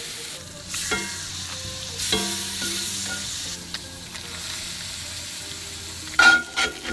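Fish fillets frying in butter in a cast-iron skillet, sizzling steadily, while a metal spatula scrapes and clinks against the pan about a second in, again about two seconds in, and loudest near the end.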